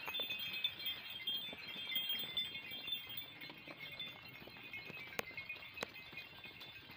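Herd of goats and sheep moving along a dirt track, with a high tinkling that fades after the first few seconds and two sharp clicks near the end.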